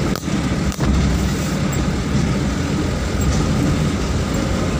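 A vehicle driving along a rough dirt track: steady engine and road noise, heaviest in the low end, with two sharp knocks in the first second.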